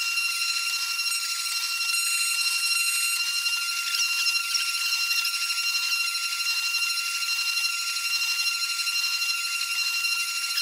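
CNC mill spindle running at a steady high-pitched whine with overtones, its bit cutting into FR-4 circuit board with a hiss of milling over it.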